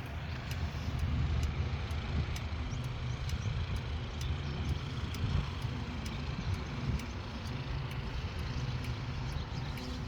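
Steady low engine rumble with a light, regular ticking over it.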